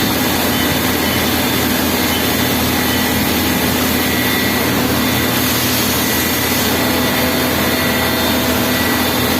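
CNC turning centre running, a steady, loud whirring noise with a couple of faint steady tones and no breaks.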